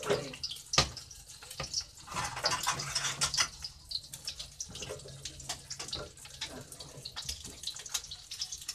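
Egg frying in hot cooking oil in a wok: a steady sizzle with frequent crackling pops. A few sharp knocks of the spatula against the pan, the loudest about a second in.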